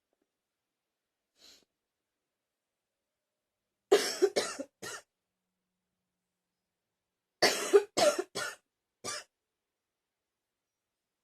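A person coughing. A faint breath comes about a second and a half in, then a fit of three quick coughs about four seconds in, and a second fit of four coughs about seven and a half seconds in.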